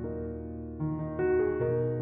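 Background music: soft piano playing a slow melody over held chords, new notes entering about once or twice a second.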